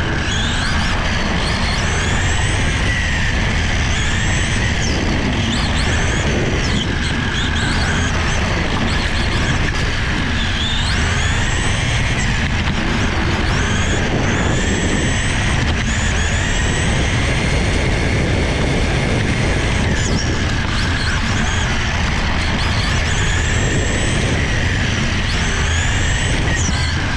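Radio-controlled car driving laps, heard from a camera mounted on the car. Its motor whines, rising and falling in pitch again and again as it speeds up and slows, over a steady rumble.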